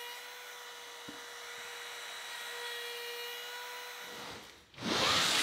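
Router with a chamfer bit running at full speed, a steady high whine, as it cuts a chamfer around the bottom end of a white oak bench leg. The whine stops a little after four seconds in, followed by a loud, roughly one-second burst of hiss.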